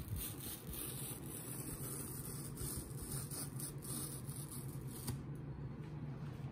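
Packing tape being peeled slowly off a cardboard box, a soft crackling run of small ticks, over a steady low hum.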